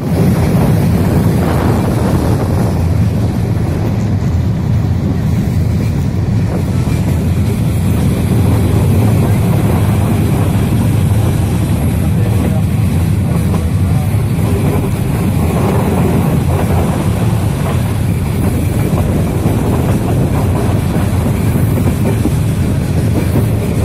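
Passenger train running at speed, a loud, steady low rumble of wheels and carriage, heard from inside the carriage.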